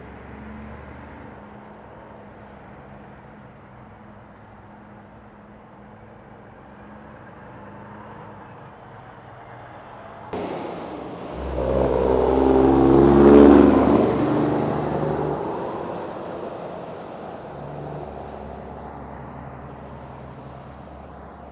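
Semi-truck diesel engines on a road, a low steady hum at first. After a sudden cut about ten seconds in, one tractor-trailer pulls away close by, its engine swelling to the loudest point a few seconds later and then fading as it leaves.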